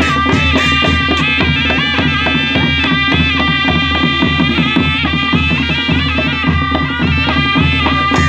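Traditional Nepali wedding band (panche baja) playing live: a wind instrument carries a bending, wavering melody over a steady, fast drum beat.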